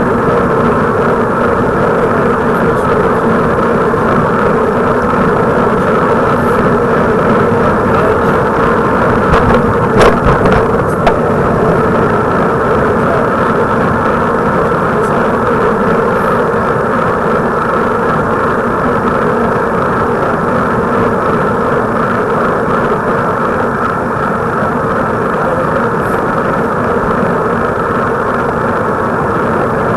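Steady vehicle running noise, with a few knocks about ten seconds in.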